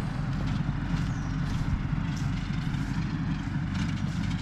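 Tractor engine running steadily at work in the field.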